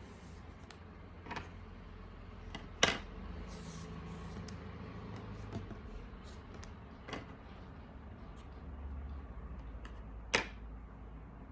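Handling of hand-sewing tools and materials: a few sharp clicks and taps, the loudest about three seconds in and again near the end, over a low steady hum.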